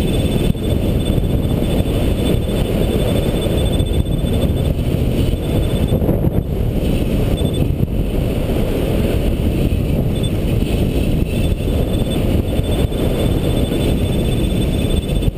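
Steady, loud wind rushing over the microphone of a camera mounted on a hang glider in flight.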